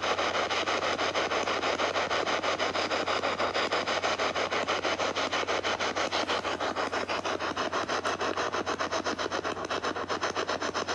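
Handheld spirit box sweeping through FM radio stations. Its speaker puts out radio static chopped into fast, even pulses many times a second as it jumps from frequency to frequency.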